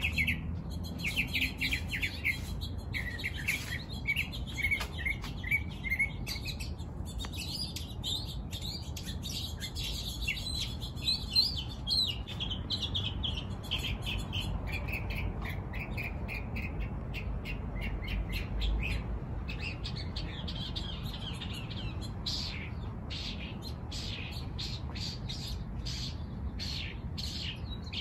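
Small birds chirping and twittering, a steady run of short high calls, coming as quicker, clipped chirps in the second half.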